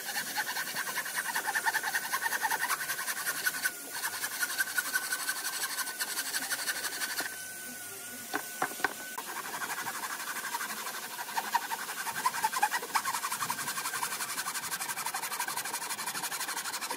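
Hand sawing pine boards with a thin-bladed frame saw: a fast, rasping run of back-and-forth strokes that pauses briefly a little before halfway, with a steady high whine running under it.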